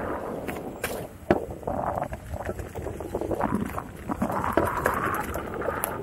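Gotway MSuper Pro electric unicycle riding along a dirt trail: wind buffeting the microphone over steady tyre and ride noise, with a couple of sharp knocks a little after a second in.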